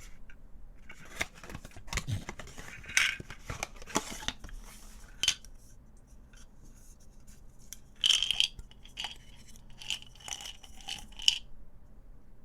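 Typing on a QK65 mechanical keyboard fitted with HMX x 80Retros Game 1989 Classic factory-lubed linear switches: irregular key presses bottoming out, with a quieter stretch about halfway through.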